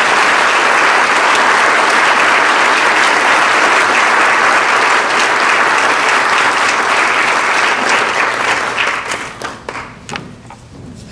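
Audience applauding, many people clapping together at a steady level; about eight seconds in it thins out to a few separate claps and dies away.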